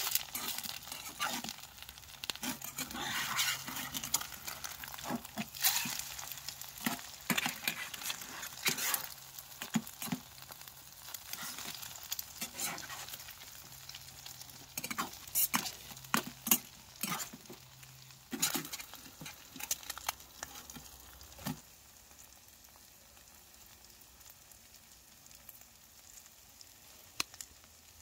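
Food frying in a pan, sizzling, while a utensil stirs it and knocks against the pan. The stirring and knocking stop a little over two-thirds of the way through, and a quieter sizzle goes on.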